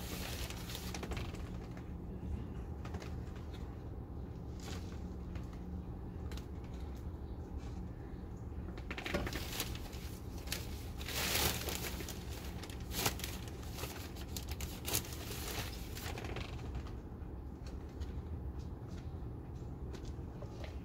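Scattered rustles and small clicks of hands handling plastic pots and potting soil, with a longer rustle about eleven seconds in, over a steady low hum.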